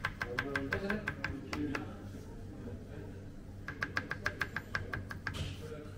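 Knife chopping green chili peppers on a plastic cutting board: two quick runs of sharp taps, about five a second, with a pause between them.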